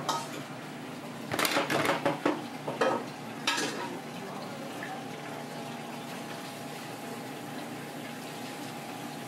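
Kitchen clatter: a quick run of sharp clinks and clanks of metal utensils and dishes in the first few seconds, then a steady background hum of the kitchen.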